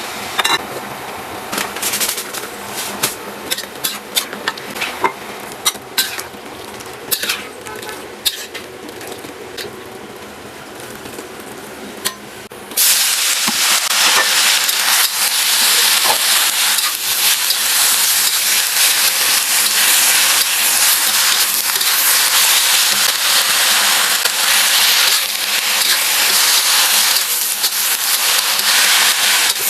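Knocks and clicks of a utensil on a pan come first. About 13 seconds in, a loud frying sizzle starts suddenly, as when food goes into hot oil, and keeps going with the clatter of stir-frying.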